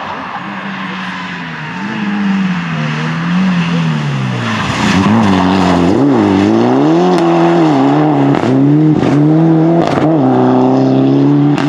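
Mitsubishi Lancer Evolution rally car's turbocharged four-cylinder engine driven hard through a corner, its pitch dropping and rising several times through lift-offs and gear changes, and growing louder as the car comes past. Several sharp cracks break in during the second half.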